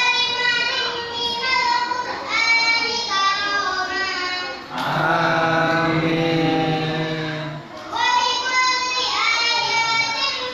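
A boy reciting the Qur'an in a melodic chant, holding long drawn-out notes. For about three seconds in the middle, a man's much lower voice takes over before the boy's high voice returns.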